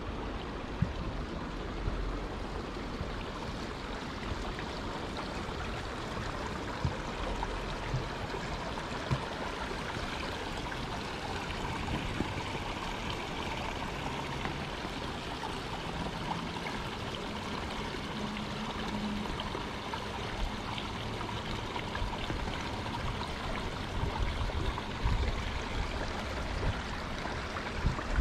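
Steady wind rushing outdoors, with gusts buffeting the microphone in low rumbles near the end and a few faint clicks.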